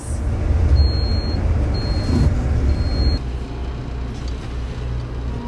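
Low rumble of a diesel pusher motorhome on the road, heard from inside. It is louder for about the first three seconds and then settles lower and steady. Three short high beeps sound during the first three seconds.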